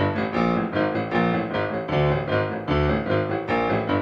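Background piano music, with notes struck in a steady, even rhythm.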